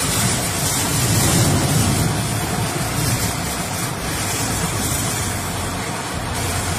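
Tornado-force wind and rain battering a car, heard from inside the cabin as a loud, steady rushing noise.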